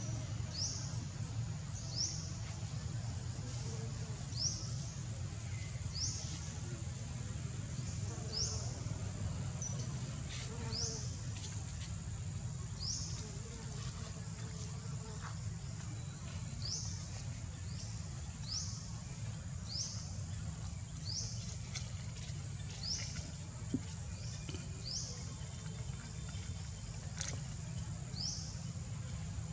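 Forest insects: a steady high-pitched insect drone, with a short rising chirp repeated about every second or so, over a steady low rumble.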